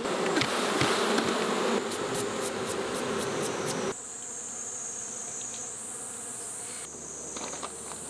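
Swarm of honeybees buzzing, a dense steady hum, at a hive opened for a frame inspection, with a few sharp clicks. About four seconds in it cuts off suddenly to a quieter, thinner sound with a steady high hiss.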